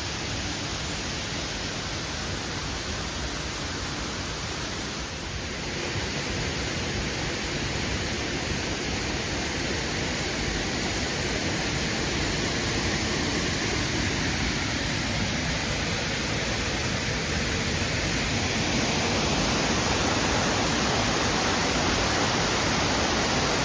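Waterfall: a steady rush of falling water that grows a little louder from about six seconds in.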